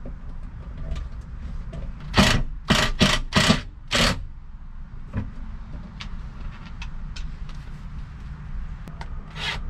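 Cordless drill/driver run in five short bursts between about two and four seconds in, driving screws to fasten a plywood cabinet in place. Light clicks and knocks of handling come between, over a low steady rumble.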